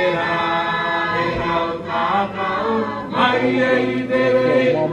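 A group of voices chanting together in held, sung notes.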